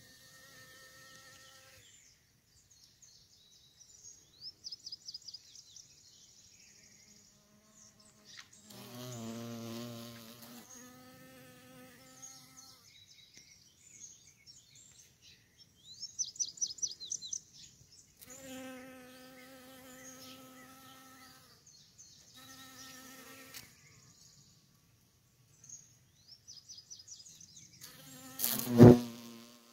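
Honey bees and a carpenter bee buzzing in flight close to the microphone, in bouts of a few seconds, with one loud buzz sweeping past just before the end. Several short series of rapid high chirps, a bird's trills, come in between.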